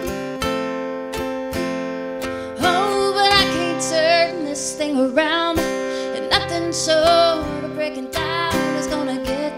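Ukulele and acoustic guitar strumming a country song together; a woman's singing comes in about three seconds in.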